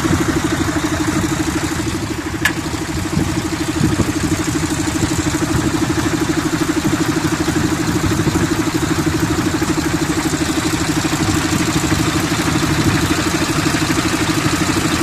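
An engine running steadily with a fast, even pulsing beat, with one brief click about two and a half seconds in.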